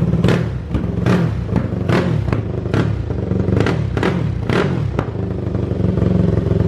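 Tuned motorcycle engine running through an aluminium muffler, revved in about eight short, sharp throttle blips, each one falling quickly back to idle.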